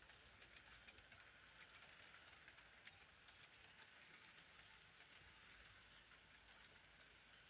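Bachmann Branch-Line model locomotives running on the layout track: a faint steady whirr of the small motors and wheels, with scattered light clicks as the wheels roll over the rail joints.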